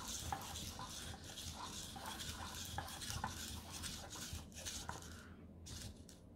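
EMO desktop pet robot moving on a tabletop: its small servo motors whirring with a run of light taps and clicks from its feet as it turns, tailing off after about five seconds.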